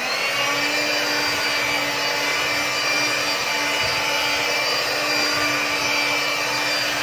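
Electric hand mixer running at a steady pitch, its beaters whipping set cream in an aluminium pot to churn it into butter.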